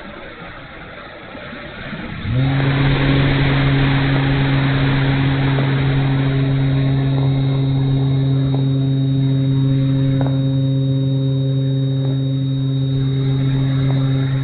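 Wind noise rushing over the microphone on an E-flite Night Radian electric glider. About two seconds in, its brushless electric motor and propeller start up with a quick rise in pitch, then run at a steady pitch, louder than the wind.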